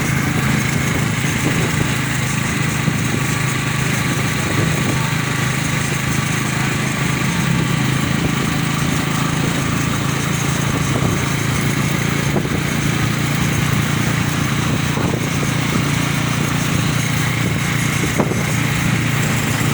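A small engine running steadily with an even, unbroken drone.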